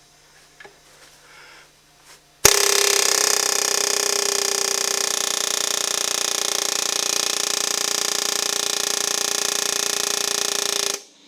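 Pneumatic air hammer (air chisel) starts abruptly about two seconds in and runs loud and steady for about eight seconds, then cuts off near the end. It is hammering against the underside of a seized piston to drive it up out of the bore of a locked engine.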